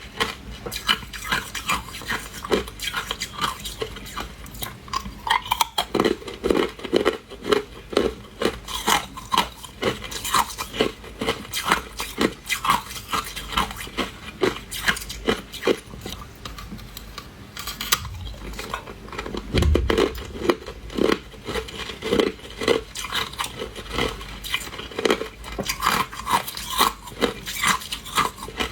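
Hard ice being bitten and chewed close up: a dense, irregular run of sharp cracks and crunches, with clinking like ice against a dish.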